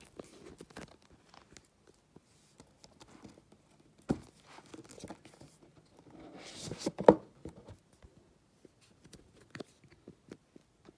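Hands handling a cardboard iPad box and its plastic wrap: scattered taps and rustling, a sharp knock about four seconds in, and a swelling rustle that ends in the loudest knock about seven seconds in.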